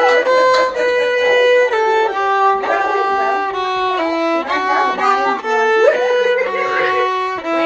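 Solo violin played with the bow: a melody of held notes, each lasting about half a second to a second, moving step by step.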